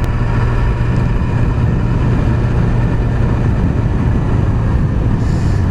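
Yamaha YZF R6 inline-four engine running steadily at a constant cruising speed, heard with wind and road noise while riding. No revving or gear changes.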